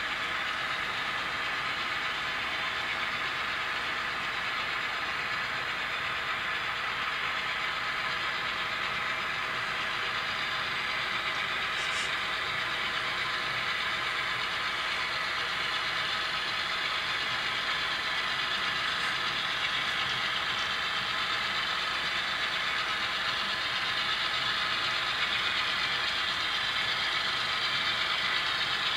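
A model railroad train of diesel locomotives and grain hoppers running steadily, its mechanical running sound growing slowly louder as the train draws closer.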